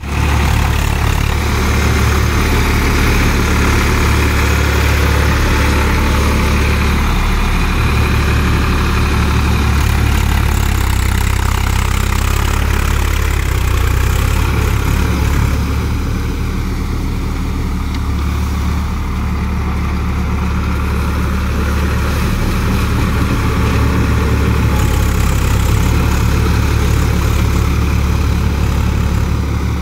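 Swaraj 855 FE tractor's three-cylinder diesel engine running steadily under load while the tractor drags a rotavator through flooded paddy mud, with a deep low hum; it drops slightly in level through the middle stretch and comes back up.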